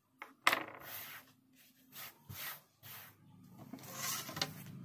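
Handling noises at a cutting table: a sharp knock about half a second in, then soft rubbing and scraping as a ruler and cloth are handled.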